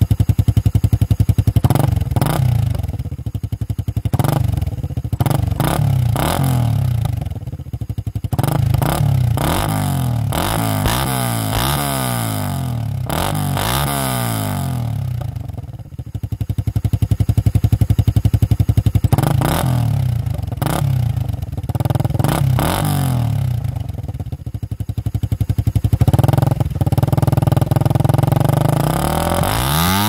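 Suzuki Raider R150 Fi's single-cylinder four-stroke engine running through a VMAX exhaust pipe, revved up and down again and again between stretches of steadier running.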